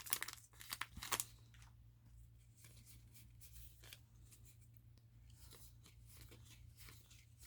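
Yu-Gi-Oh! trading cards and pack handled by hand: a few crisp clicks and rustles in the first second or so, then only faint scattered ticks over a low steady hum.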